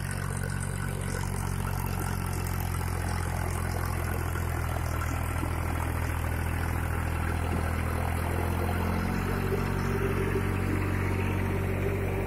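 Powertrac ALT 4000 tractor's diesel engine running steadily as it hauls a stone-loaded trolley up close and past; its note shifts slightly about nine seconds in.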